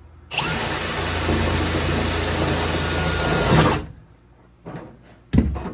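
Power drill running steadily for about three and a half seconds, boring out a rivet hole. A single sharp knock follows near the end.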